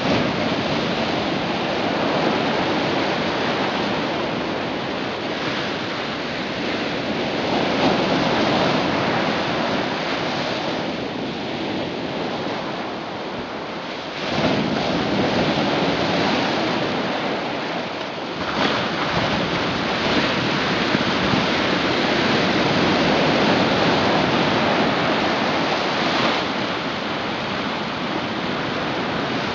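Rushing, churning noise of sea water and surge, steady apart from a jump in level about halfway through.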